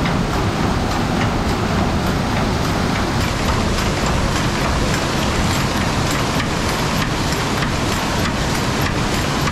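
Water rushing and churning through the wooden flume and wheel pit beneath a water-powered sawmill: a loud, steady rush with faint, irregular clicks over it.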